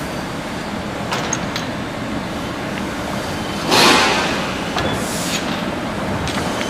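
Steady machinery noise with a few light clicks, then several bursts of hissing, the loudest about four seconds in.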